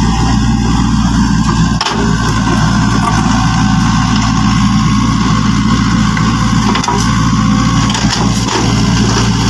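A steady, low engine drone like a heavy machine idling, with the crunch and trickle of dirt as a hand-worked plastic toy excavator scoops soil and tips it into a toy dump truck.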